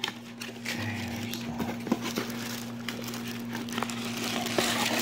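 Clear plastic packaging bag around a scooter engine cylinder crinkling as it is handled and lifted out of a cardboard box, with scattered small clicks.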